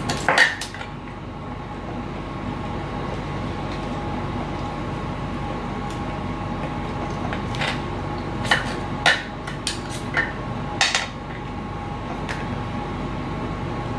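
Small tools and parts being handled and set down on a workbench: a handful of sharp clinks and taps, one right at the start and most bunched in the second half, over a steady background hum.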